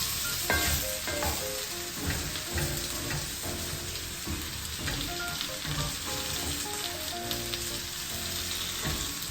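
Diced potatoes and onions frying in oil in a pan with a steady sizzle, and occasional clicks and scrapes of stirring.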